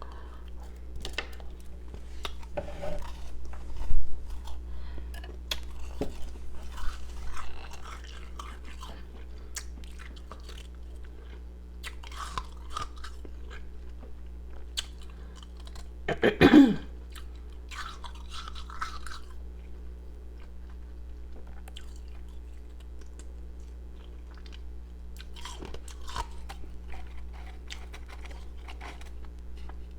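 Close-up crunching and chewing of powdery, carbonated ice pieces in bouts of crisp crackles with pauses between them. Sharp bites stand out about four seconds in and about sixteen seconds in, the latter with a short louder mouth sound.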